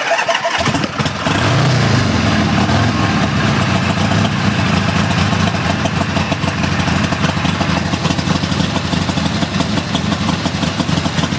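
1980 Harley-Davidson Sportster's Ironhead V-twin starting up and then running steadily with the choke partly in. The revs rise and fall briefly about a second and a half in.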